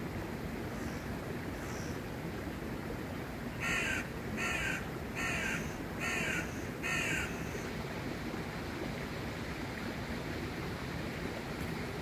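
A crow cawing five times in quick, even succession, harsh calls about two-thirds of a second apart, over a steady background hiss.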